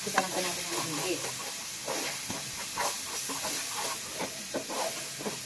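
Chopped onions, garlic and tomatoes sizzling in hot oil in a frying pan, with a wooden spoon stirring and scraping against the pan in short irregular strokes.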